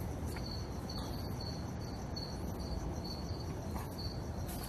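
A cricket chirping steadily, about two short high chirps a second, over a low steady hum.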